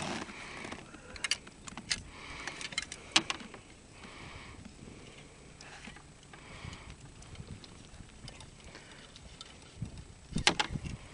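Scattered sharp clicks and knocks as a landing net holding a freshly caught redfish is handled in a boat, with a brief cluster of louder knocks near the end.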